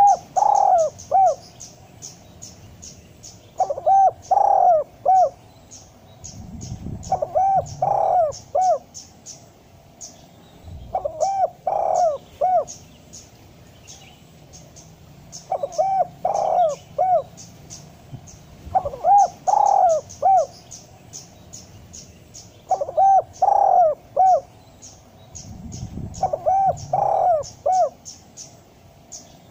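Spotted dove (tekukur) giving its cooing call over and over: eight phrases, each a short run of three or four coos, about every three to four seconds. Fast, high chirping runs behind the coos for much of the time.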